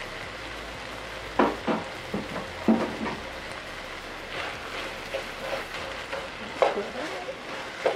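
Cabbage and chicken sizzling steadily in a skillet, with a spoon stirring and scraping the pan in several short sharp knocks.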